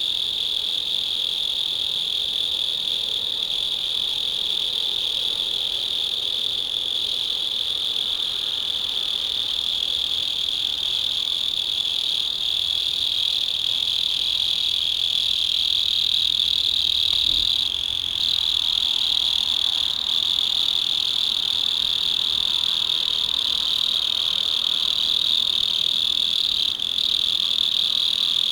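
Mole crickets singing: a steady, unbroken high-pitched trill that dips briefly twice in the second half.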